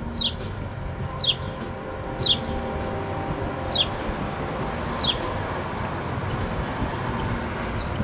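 Male house sparrow chirping: single short, sharply falling chirps about once a second, five in a row over the first five seconds, then a faint one near the end.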